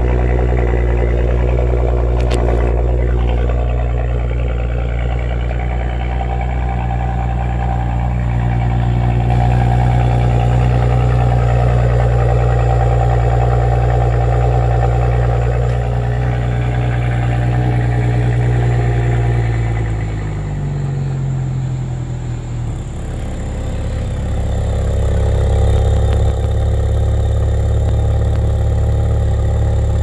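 2022 Audi S4's 3.0-litre turbocharged V6 idling after a cold start, heard at the exhaust with the factory sport resonator. The steady idle note steps down to a lower pitch about two-thirds of the way through.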